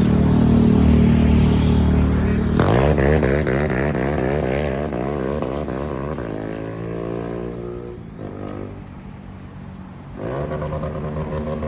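A motor vehicle's engine running close by: its pitch wavers quickly, then falls away as it fades, and another engine comes up loudly near the end.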